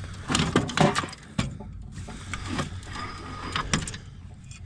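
Metal tripod being pulled out of a pickup bed full of tools, its legs clanking and knocking against the gear, with a quick run of sharp knocks in the first second and two more near the end, over a low steady hum.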